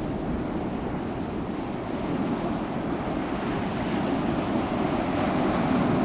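Sea waves washing on a shore, a steady rush of surf that swells a little toward the end.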